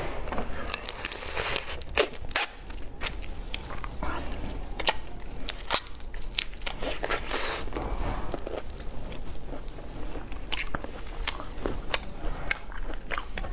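Close-miked eating of whole large prawns: irregular sharp cracks and crunches as the shells are bitten and chewed, with wet mouth noises between them.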